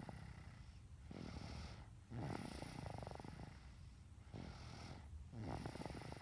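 Snoring: slow, rattly snores repeating about every three seconds, with a louder snore beginning about two seconds in and another near the end.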